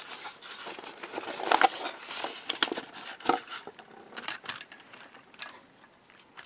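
Styrofoam box insert rubbing and scraping as a plastic HO-scale crane car is worked out of it by hand, a run of scratchy strokes over the first three seconds or so, then a few light plastic clicks as the car is set onto the track.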